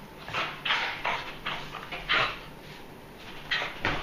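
Small wet dog rubbing and rolling on a blanket-covered couch to dry himself after a bath: quick bursts of fabric rustling and scuffing, with a short lull about two and a half seconds in.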